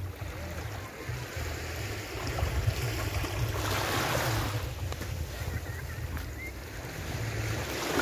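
Small waves breaking and washing up a sandy beach: one wash swells and fades about halfway through and another begins near the end, over a steady low rumble of wind on the microphone.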